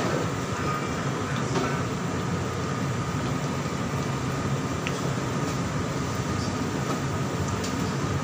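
Battered eggplant stems deep-frying in a wok of hot oil: a steady sizzle and bubble that does not let up, with a few small crackles.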